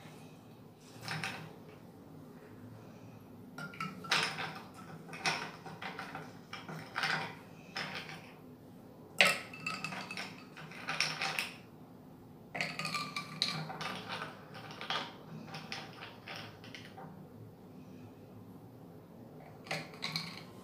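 Ice cubes clinking and knocking as they are picked out of a glass bowl and dropped into a tall glass of iced coffee. The clinks come in several uneven clusters, the sharpest about nine seconds in.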